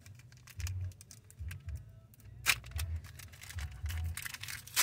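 Foil Pokémon booster pack wrapper crinkling as it is torn open across the top: a run of small crackles, with one louder crackle about two and a half seconds in.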